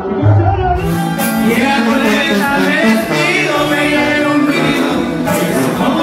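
Live sierreño-style regional Mexican music: a male voice singing over acoustic guitars with a deep tuba bass line. About a second in it cuts abruptly to another live recording of a male singer with acoustic guitar.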